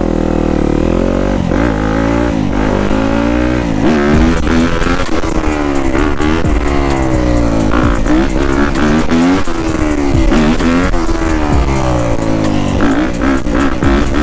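Yamaha YZ250F four-stroke single-cylinder dirt bike engine under way, revving up and dropping back over and over, its pitch rising and falling about once a second as the throttle is worked.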